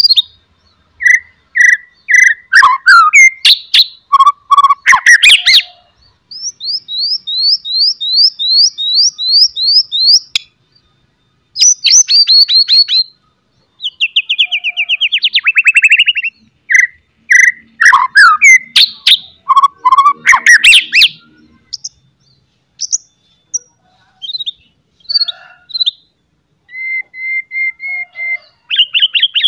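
White-rumped shama (murai batu) singing loudly in varied phrases. It mixes clear whistles, harsh rattling chatter (cetrekan) and a run of about a dozen quick repeated rising notes, with short pauses between phrases.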